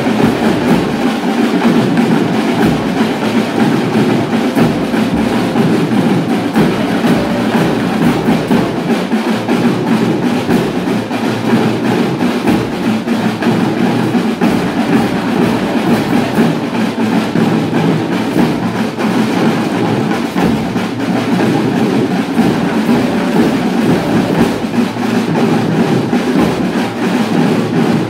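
School marching band's snare and bass drums beating continuously, a dense, loud drum-corps rhythm.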